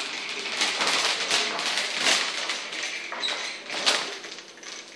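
Wooden push-along toy rolling across a tile floor, clattering in a quick, uneven run of taps and clicks that grows fainter over the last second or so as it moves away.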